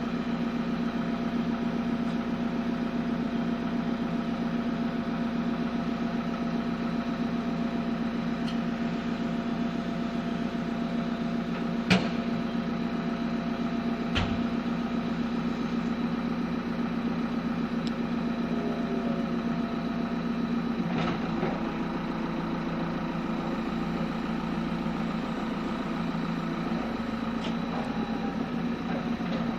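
Backhoe's diesel engine running steadily, with a sharp knock about twelve seconds in and a lighter one two seconds later.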